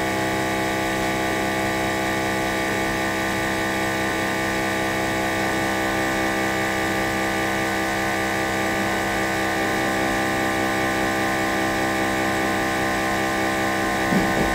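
Built-in vacuum pump of an OM-518Plus LCD separator machine running with a steady hum, holding the screen down on the heated plate.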